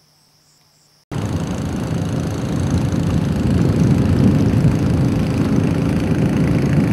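Boat engine running steadily, heard from on board, cutting in suddenly about a second in; before it, faint crickets chirring.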